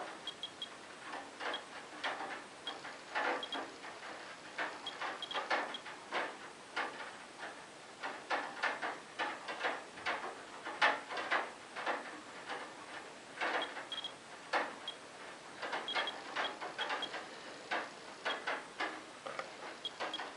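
Radex RD1008 dosimeter clicking irregularly, several clicks a second, with short high beeps in small groups. The fast count is a sign of the radioactivity brought down by the rain from radon-222 decay products.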